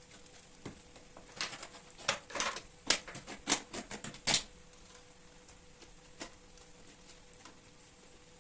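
A quick run of light clicks and short rustles, kitchen handling sounds, between about a second and a half and four and a half seconds in, over a quiet room with a faint steady hum.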